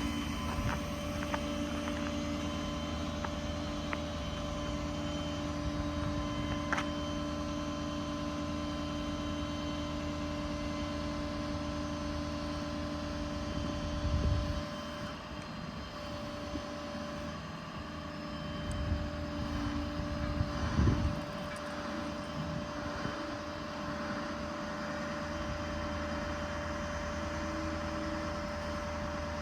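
The Ford F550's 6.7 L Power Stroke V8 diesel running steadily with the hydraulic system driving the crane, a drone with a steady whine over it. There are brief louder surges about halfway through and again around twenty seconds in.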